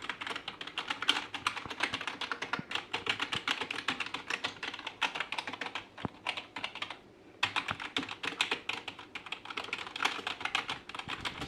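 Typing on an HP K300 gaming keyboard: a fast, continuous run of key clicks, with a short pause about two-thirds of the way through.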